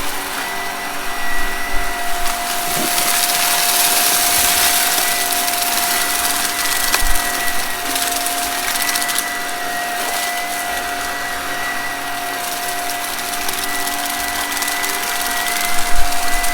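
Vacuum cleaner running steadily with a constant motor whine while it sucks up crunchy debris, with occasional faint crackles.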